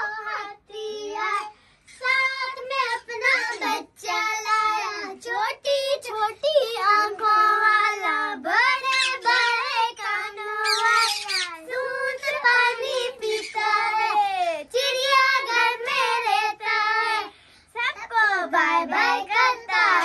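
A high-pitched voice singing without accompaniment, the pitch bending constantly, with a short rising squeal about eleven seconds in.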